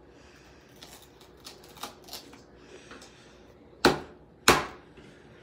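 Small clicks and scrapes of a tool working broken glass out of an iPhone 6S screen, then two sharp knocks about half a second apart near the end.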